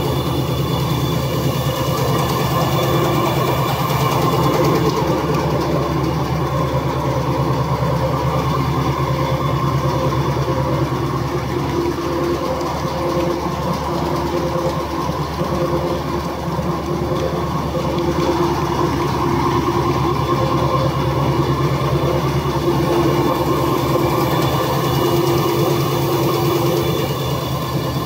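Single-blade high-speed paper straw making machine running steadily: a continuous mechanical hum with a fast, even clatter.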